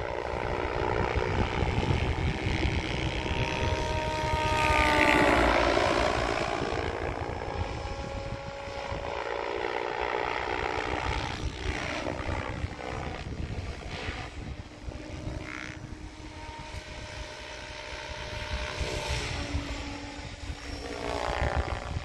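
PSG Dynamics Seven electric RC helicopter flying overhead: its 715 mm main rotor and tail rotor whine with the brushless motor, sliding down and up in pitch as it swoops past. It is loudest about five seconds in, with further passes near the middle and near the end.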